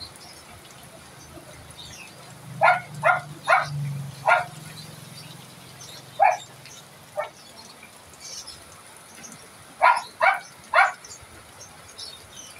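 A dog barking in short bursts: four quick barks, two single barks a little later, then three more near the end, over steady falling rain.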